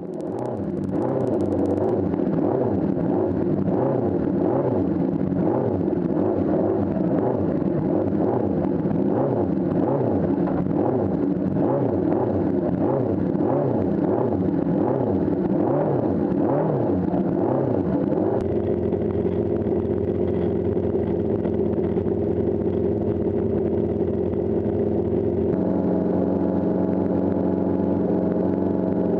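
Honda CB750 Four-based racing motorcycle's air-cooled inline-four engine running, its pitch rising and falling over and over, about once a second, then holding steadier for the last third.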